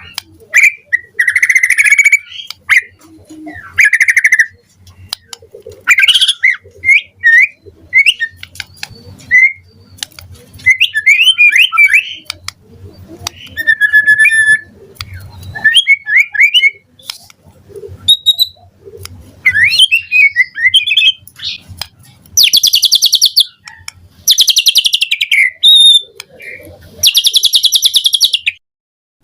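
White-rumped shama singing a loud, varied song of clear whistled notes and quick rippling trills, phrase after phrase with short pauses. In the last few seconds come three long harsh, buzzy phrases.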